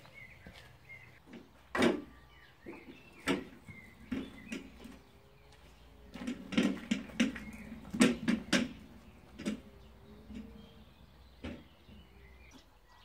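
Wheelbarrow knocking and rattling as it is pushed over paving slabs, with a close run of clatters about halfway through.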